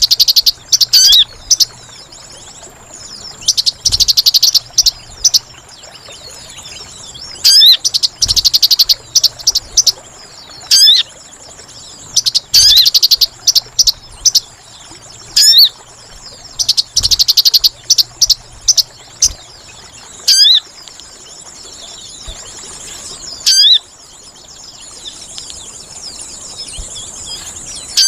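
Sogon bird calls played as a trapping lure: loud bursts of rapid, high chattering notes, with quick rising whistles, repeating every few seconds. A steady high insect-like buzz runs underneath.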